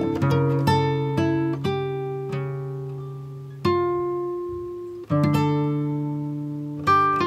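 Background music on acoustic guitar: plucked notes and chords ring out and fade. Fresh notes are struck a little past halfway and again near the end.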